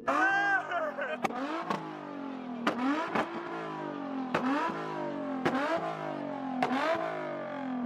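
Car engine on a two-step launch limiter, revved in sharp blips about once a second. Each blip sets off a loud pop, and the pitch sags between blips.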